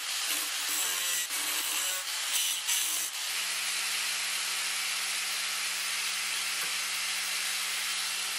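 Angle grinder with a cutoff wheel cutting through a steel circular saw blade, the pitch wavering under load. From about three seconds in it runs on steadily at an even whine, no longer cutting.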